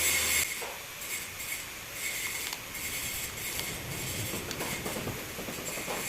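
Faint, irregular metallic clicks and scraping over a steady hiss, from a bolt being turned with a wrench to press a new valve seat into a diesel cylinder head.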